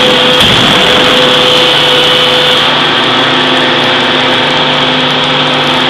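5-tonne forging hammer running: a loud, steady mechanical drone with a constant whine, and a single knock about half a second in.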